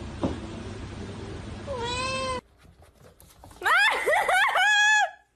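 A cat meows once. Then, after a short quiet gap, a tabby kitten gives a loud run of quick, high meows, the last one drawn out longer.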